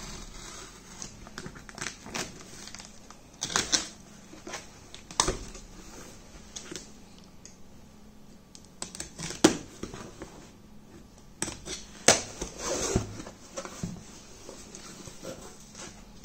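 Utility knife slitting the packing tape on a cardboard box and the cardboard flaps being handled and pulled open: irregular scrapes, rustles and sharp clicks and knocks, a few of them loud.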